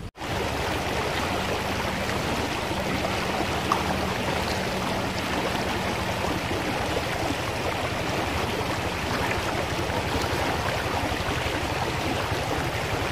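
Shallow rocky river running steadily over a riffle, an even rush of water.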